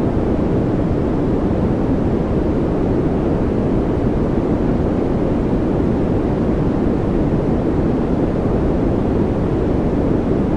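Steady white-noise track: a constant, even rushing hiss, heaviest in the low end, with no change in level or pattern.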